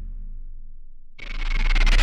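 Cinematic sound-design effect: a deep bass tone fades out, then about a second in a noisy swell with a steady high whine rises, building toward a heavy boom.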